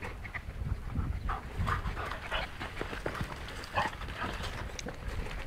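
Kuvasz dog panting in short, irregular breaths while it play-wrestles with a pig.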